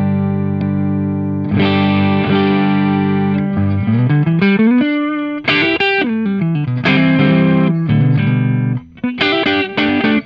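Electric guitar on its neck humbucker, played clean through a Fender Deluxe Reverb with a Mr. Comando compressor pedal switched on at a transparent setting. Held chords ring out evenly, then single-note lines with slides about halfway through, then chords again.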